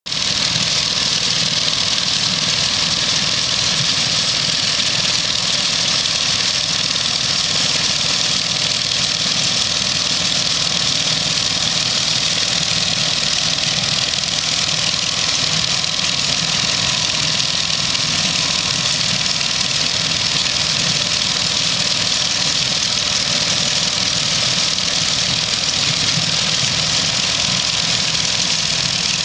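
Hay-baling rig running steadily: a mid-1950s New Holland Super 78 Hayliner baler driven by its own air-cooled Wisconsin VH4D four-cylinder engine, pulled by a Massey Ferguson 253 tractor. A loud, even engine-and-machinery noise with a constant hiss over a low hum.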